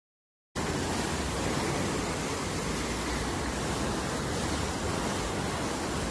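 Muddy floodwater rushing steadily through a concrete channel, a dense, even noise of torrential water that starts about half a second in after a brief silence.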